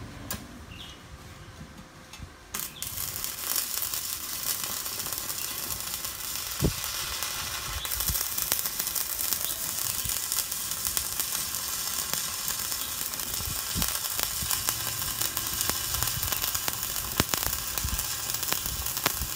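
Stick-welding arc from a Kenmax ARC 200 welder burning a 3.2 mm electrode: a steady crackling sizzle that starts about two and a half seconds in and grows louder about eight seconds in, with a few sharp pops.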